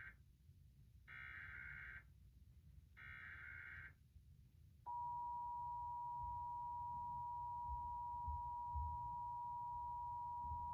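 Emergency Alert System required monthly test: the end of the first and then the second and third bursts of the SAME header's digital data tones, each about a second long with about a second between them. After a short gap, the steady two-tone EAS attention signal starts about five seconds in and holds.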